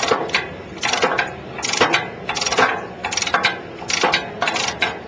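Ratchet wrench clicking in repeated strokes, about one every 0.7 seconds, as it turns the adjusting screw that lowers a conveyor skirt liner.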